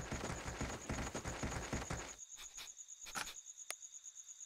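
Quick running footsteps clatter on a wooden footbridge for about two seconds, then stop. Crickets chirp steadily throughout in a night-time ambience, with a couple of light clicks near the end.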